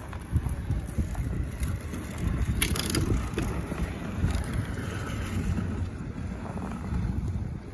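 Wheels of a rolling cooler running over an ice rink's surface, a steady low rumble with a few clicks and knocks, the loudest a little under halfway through.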